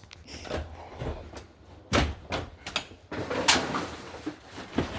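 A locked door being forced open with a tool: a few sharp knocks and clunks with a scraping rattle, the loudest about halfway through.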